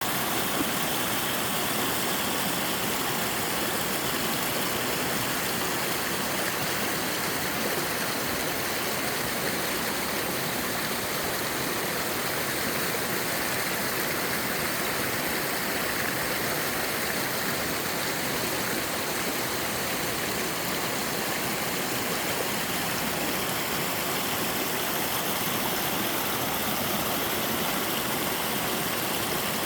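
Three-tiered sliding waterfall, water pouring down over sloping rock into a mountain stream: a steady, unbroken rush of water.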